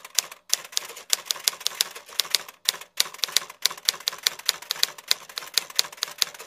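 Typing sound effect: a fast, uneven run of sharp key clicks, about six or seven a second, with two brief breaks. It accompanies on-screen text being typed out letter by letter.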